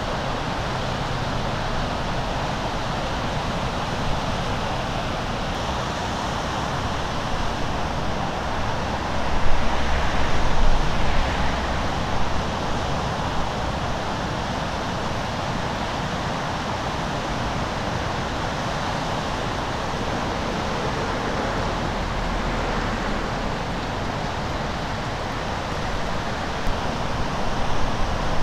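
Steady wash of Lake Michigan surf breaking along the shore and jetty, with wind buffeting the microphone in low rumbling gusts about ten seconds in and again near the end.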